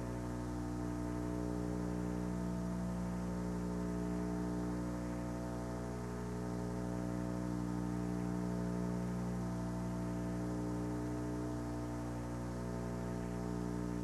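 A steady, unchanging drone of many even tones.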